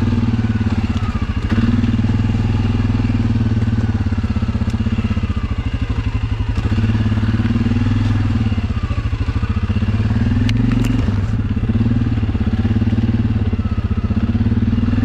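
Suzuki KingQuad ATV engine running steadily at low revs while the quad crawls over rocks, with a few short clicks and clatters about ten seconds in.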